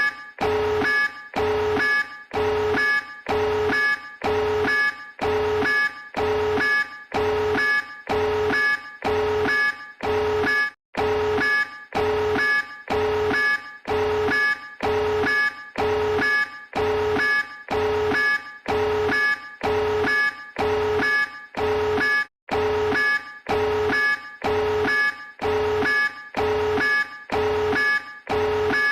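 Emergency alert (EAS) alarm tone beeping over and over, about one and a half beeps a second, each beep a low and a high tone sounding together. Twice the beeping breaks off for a moment.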